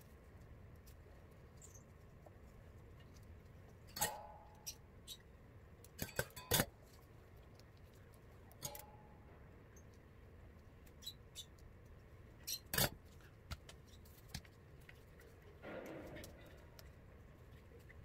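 Scattered light clicks and taps of small hard objects being handled and set down, two of them with a brief ringing note, and a short rustle near the end.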